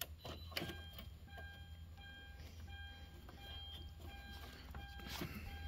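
A metallic click as the negative battery cable clamp is set on the post. About a second later an electronic warning chime begins beeping steadily, roughly every two-thirds of a second, as the 2009 Hyundai Santa Fe's electrics come back on with the battery reconnected.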